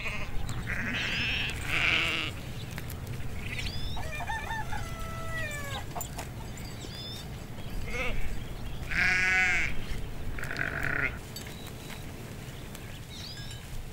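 Sheep in a flock bleating several times, the longest a wavering bleat just past the middle.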